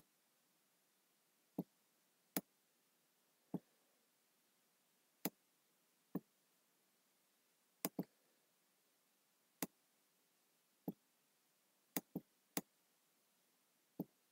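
Computer mouse button clicking: about a dozen short single clicks at irregular intervals, a second or two apart, with near silence between them.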